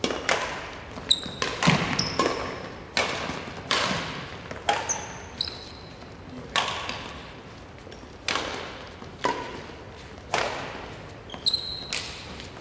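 Badminton racket strings hitting a shuttlecock in a rally: sharp hits about once a second, each ringing on in the echo of a large hall. Short high squeaks of court shoes on the wooden floor come in between.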